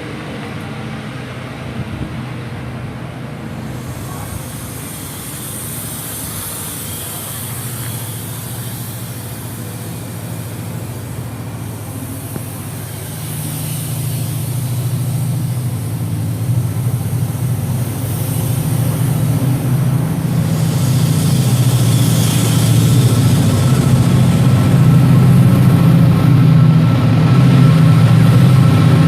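Chiltern push-pull train pulling out, with the Class 68 diesel-electric locomotive at the rear working hard under power. Its heavy engine note builds from about halfway through and is loudest near the end as the loco comes past, over a steady hiss of the moving train.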